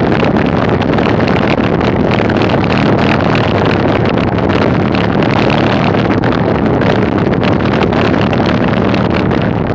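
Steady wind rush buffeting a bicycle-mounted camera's microphone, mixed with the rumble of tyres rolling over a dirt road.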